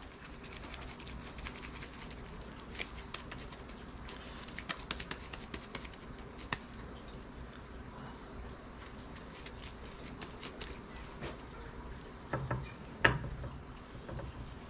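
Gloved hands patting and pressing a crab cake patty into shape, with faint scattered clicks and pats, and a sharp knock about thirteen seconds in as the patty is worked against the plate.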